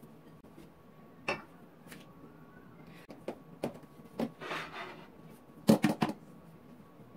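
Kitchen handling sounds around a hot pan coated with a thin layer of pastry-sheet batter: scattered light clicks and knocks, a short brushing scrape, and a loud cluster of knocks about six seconds in.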